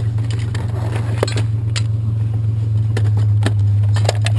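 Steady low hum of an idling vehicle engine, with scattered light clinks and knocks of metal objects being handled and sorted.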